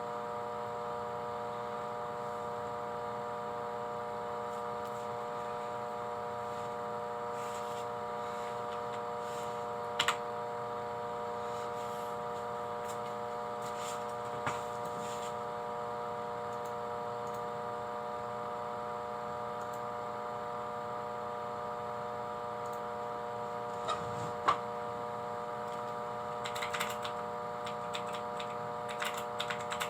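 A steady electrical hum made of several fixed tones, with a few sharp clicks about a third of the way in and again near the end. A run of small tapping clicks follows toward the end.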